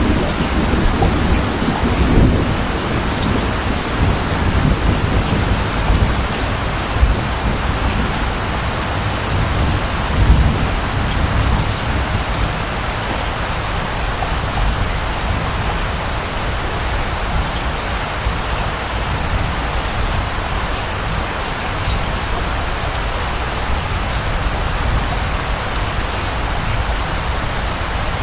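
Steady heavy rain with distant thunder rumbling low in the first half, dying away after about ten seconds and leaving the rain alone.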